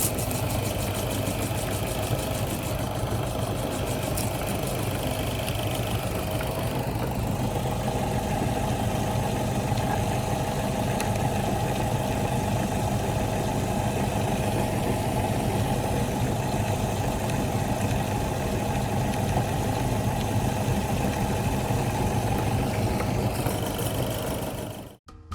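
Electric meat grinder running steadily, its motor humming with a churning rattle as it grinds, then cutting off abruptly near the end.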